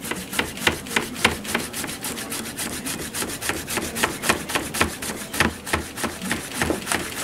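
Chef's knife slicing a zucchini into rounds on a plastic cutting board: a steady run of chops, about three a second.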